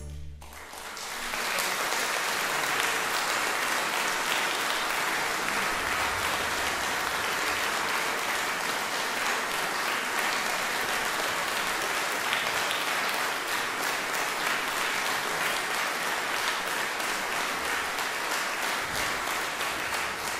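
Concert audience applauding an orchestra: the last chord dies away at the start, then the clapping swells within about a second and a half and holds steady.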